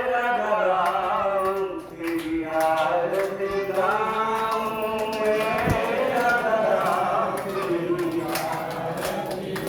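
Male voices chanting a Hindu aarti, a devotional hymn, in long held lines with brief breaks between phrases.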